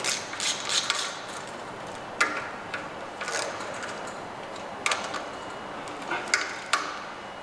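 Hand ratchet clicking as it tightens the three bolts of a diesel injection pump pulley. A quick run of clicks comes in the first second, then single clicks and short groups at intervals.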